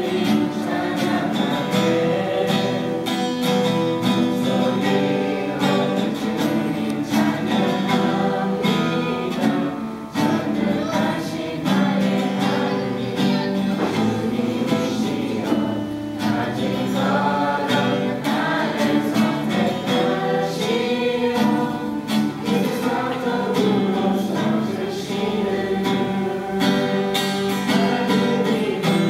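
A youth choir singing a Christian praise song together, accompanied by an acoustic guitar.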